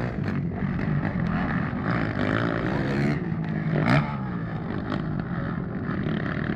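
Several motocross motorcycle engines revving up and down as the bikes race around the track, with a louder peak about four seconds in.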